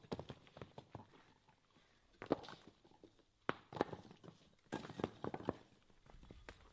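Irregular knocks and clatter of broken brick and concrete rubble being handled and stepped on, with a few louder clacks among quieter ones.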